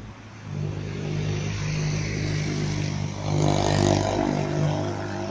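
A-class tram approaching at low speed, with a steady low drive hum that comes in about half a second in and swells, with added higher running noise, about three seconds in.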